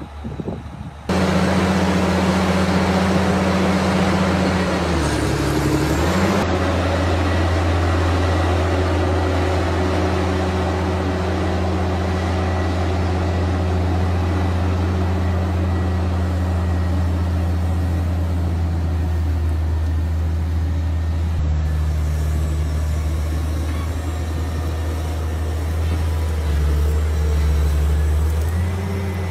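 Large Caterpillar tracked excavator's diesel engine running hard and steady, starting suddenly about a second in, its pitch dipping briefly and coming back about five seconds in.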